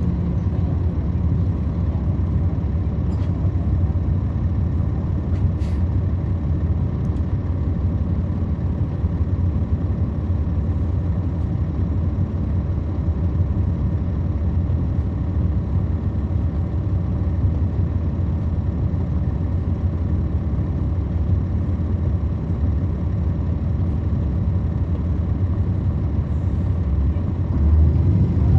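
The Cummins ISL9 diesel engine of a 2010 NABI 40-SFW transit bus running steadily, heard from the back of the bus as a deep, even rumble. It gets louder about a second before the end.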